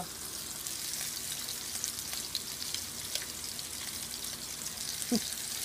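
Salmon fillets frying in hot oil in a pan: a steady sizzle with scattered pops and crackles of spattering oil.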